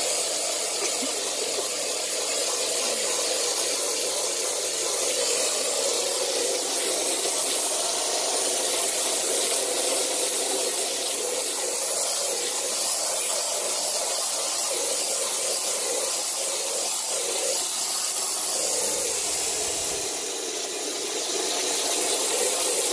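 Steady hiss of water spraying onto a soapy carpet as it is washed, dipping briefly about eight seconds in and again near the end.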